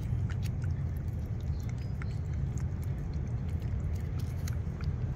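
Cats licking and lapping cat puree from a squeeze tube: a scatter of small wet clicks and smacks. Under them runs a steady low rumble.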